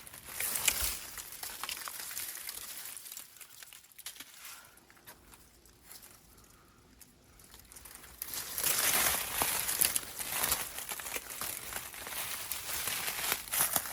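Footsteps crunching over dry, leaf-strewn ground, with crinkling and scattered clicks. They are quieter for a few seconds in the middle and pick up again about eight seconds in.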